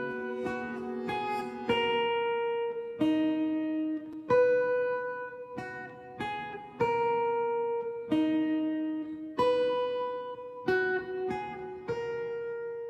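Background music: an acoustic guitar picking slow, ringing notes and chords, a new one struck every second or so.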